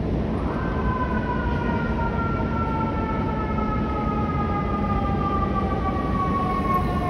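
An emergency-vehicle siren sounds one long tone that begins about half a second in and slides slowly down in pitch, over the steady noise of city street traffic.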